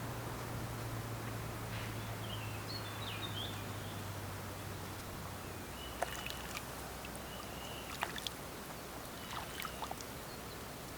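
Steady outdoor background noise with a low hum that fades out about halfway through. Brief high chirps, like small birds calling, come in a few times, and a few sharp clicks fall in the second half.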